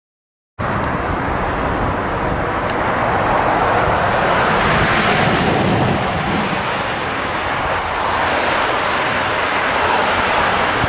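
Road traffic noise: a steady rushing of vehicles driving past, swelling slightly about halfway through and again near the end.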